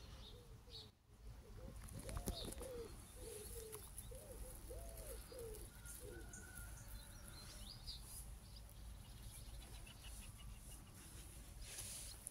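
A pigeon cooing: a run of low, rounded coos through the first half, with small birds chirping faintly now and then.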